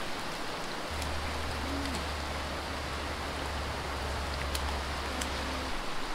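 Snowmelt-swollen creek rushing over riffles, a steady hiss, with a low steady rumble from about a second in until near the end.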